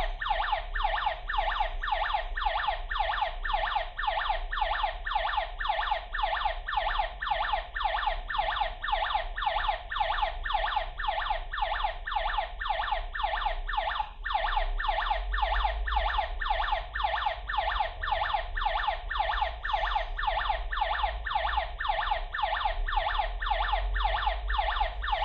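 KERUI W181 alarm host's built-in siren sounding, a fast, evenly repeating electronic sweep that keeps going without a break for about 25 seconds.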